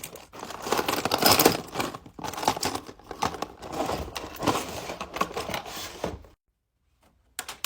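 Crinkling and rustling as small fidget toys are handled and rummaged through, with many quick clicks and rattles; it stops suddenly about six seconds in.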